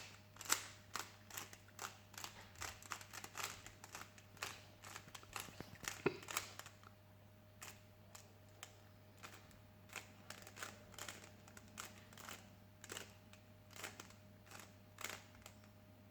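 Plastic Rubik's cube being turned face after face, a faint, irregular run of quick clicks and clacks as the last-layer corners are twisted into place.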